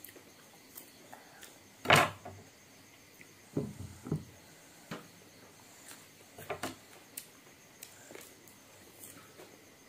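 Scattered clicks and knocks of a kitchen knife and vegetable pieces handled over a ceramic bowl on a wooden table, with one louder knock about two seconds in and a short cluster of thuds near the middle.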